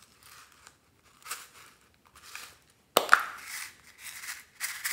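Small plastic box of sequins being handled, its snap lid popping open with a sharp crack about three seconds in, then the sequins rattling and spilling out.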